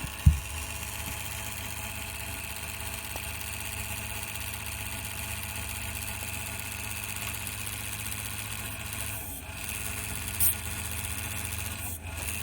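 Cooling fan of a Kuroutoshikou GeForce GTX 1050 Ti graphics card (GF-GTX1050Ti-E4GB/DF3) running with an abnormal noise: a steady low drone with a higher whine above it. A sharp thump just after the start, and a brief high click about ten seconds in.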